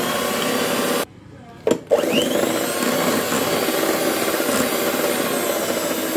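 Electric hand mixer running its twin beaters through cake batter in a glass bowl. It is switched off about a second in, then started again about a second later, spinning up with a brief rising whine and running steadily.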